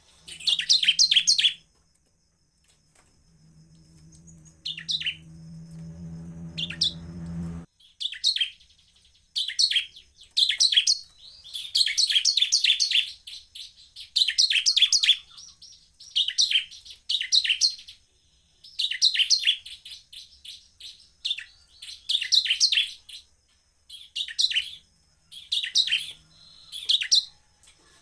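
Bar-winged prinia (ciblek) singing in repeated short bursts of rapid, high, chattering notes, each under a second. There is a lull of a few seconds early on, then the phrases come close together. A low hum rises underneath during the lull and cuts off suddenly.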